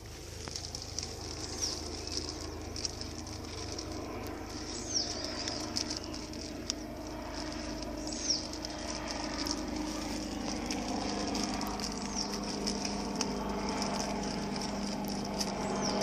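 Crackling and rustling of plastic wrap being worked and tied around a breadfruit branch by hand, full of small clicks. A bird's short high chirp recurs about every three and a half seconds.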